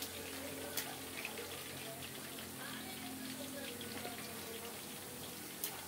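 Steady hiss of food cooking on the stove, with two sharp clicks of metal tongs against a plastic container, about a second in and near the end.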